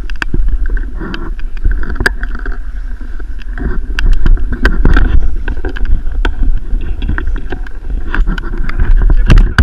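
Wind buffeting a body-mounted camera's microphone while skiing through powder snow, with many sharp clicks and knocks from the camera mount and gear.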